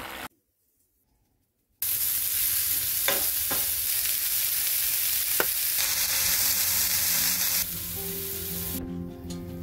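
Sliced mushrooms and onions sizzling in a frying pan, with a few light clicks over the sizzle. It begins after a short silence, and soft background music comes in near the end.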